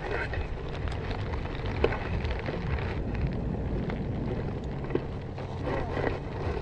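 Wind buffeting the microphone while the nylon fabric of a paraglider canopy crackles and rustles, over a faint low steady hum.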